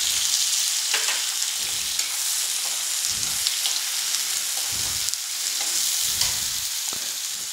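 Chopped onions sizzling in hot mustard oil in a metal kadhai, with a steady frying hiss. A perforated metal spoon stirs them, giving a few faint knocks against the pan.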